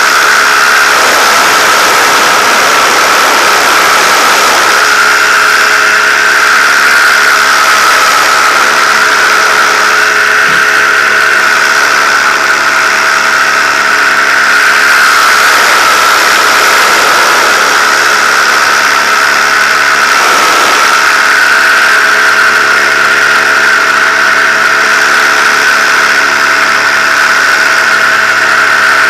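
Paramotor engine and propeller running steadily in flight: a loud, even drone with a steady high whine over it.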